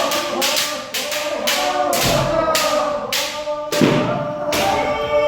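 Kendo practice: a run of sharp cracks of bamboo shinai striking armour, over long, held kiai shouts from several practitioners. The strikes come quickly at first and thin out in the second half.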